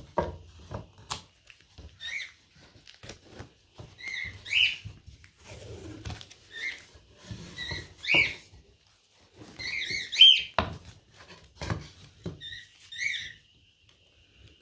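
A bird's short whistled chirps, rising and falling, in about six small groups, over light knocks and clicks of wooden frame pieces being handled and taped.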